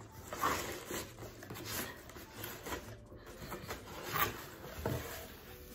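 Cardboard rubbing and scraping in a string of short scrapes as a tight-fitting box is worked loose and slid out of a cardboard shipping box.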